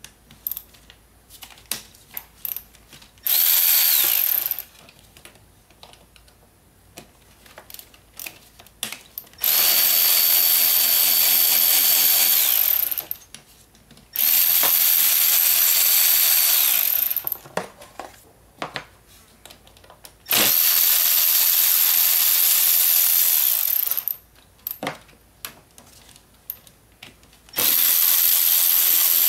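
Cordless electric ratchet running out bolts in five runs of one to four seconds, each a steady high whine that spins up and winds down. Between runs there are light metallic clicks and taps.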